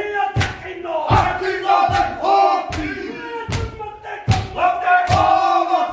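Māori haka: a group of men shouting a rhythmic chant in unison, with a heavy stamp or slap about every 0.8 seconds.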